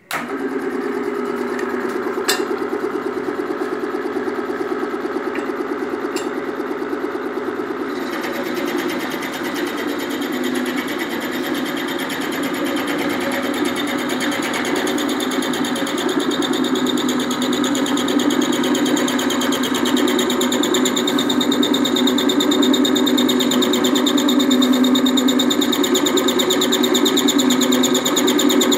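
Lathe running steadily while milling a groove in steel, starting abruptly; from about eight seconds in a harsher, gritty cutting noise joins as the cutter bites into the metal.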